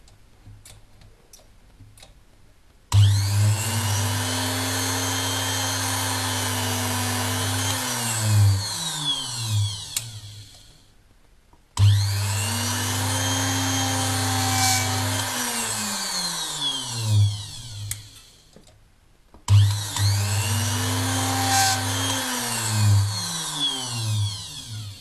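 Mini jewelry drilling machine switched on three times: each time the motor starts abruptly, runs with a steady hum and whine for several seconds, then is switched off and spins down with falling pitch. A few faint clicks come before the first start.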